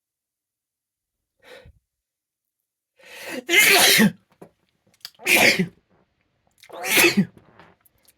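A man sneezing three times in a row, about a second and a half apart, the first after a rising, drawn-in breath. The sneezes are brought on by tickling the nose with a paintbrush.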